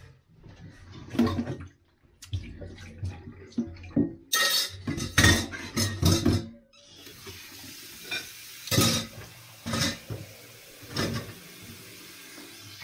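Frying pan, plates and cutlery clattering and knocking in a steel kitchen sink; about seven seconds in the tap is turned on and water runs steadily into the sink while the dishes go on knocking together.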